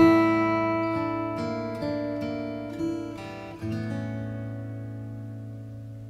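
Background music: solo acoustic guitar. A chord is struck at the start and a few single notes follow, ringing on and slowly fading out.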